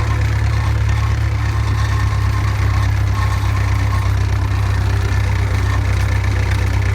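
Massey Ferguson 130 tractor's four-cylinder diesel engine running steadily.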